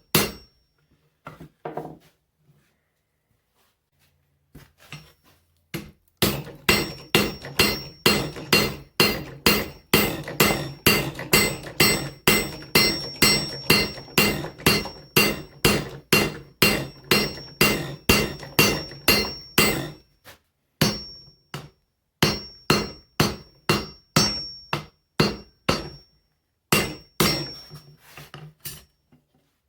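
Blacksmith's hammer striking hot mild steel flat bar on an anvil, drawing the center section down thinner for an axe eye. A few blows, a pause of a few seconds, then steady blows about two to three a second with a high ring, broken twice by short pauses.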